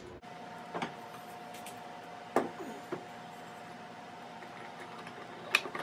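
A few short, sharp metal clinks and knocks as the mini mill's steel column is set onto its mount casting, over a steady faint hum.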